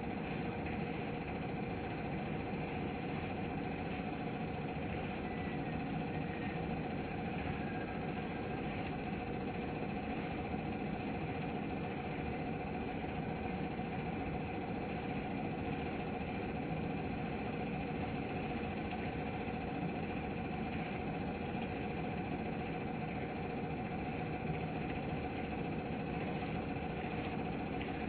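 A steady machine hum from an engine or motor running without change, with a constant low rumble and two steady tones.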